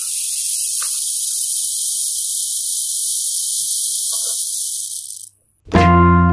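A steady high-pitched hiss that cuts off suddenly about five seconds in; moments later, keyboard music with piano-like notes begins.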